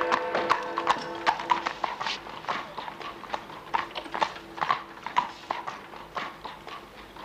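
Horse's hooves clip-clopping on a street as a horse-drawn carriage passes, about two to three strikes a second, fading as it moves away. Background music plays underneath.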